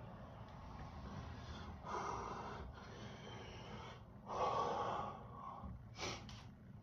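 A man's heavy breaths and gasps, two long noisy breaths about two and four and a half seconds in, with a short click near the end; he is catching his breath after chugging soda.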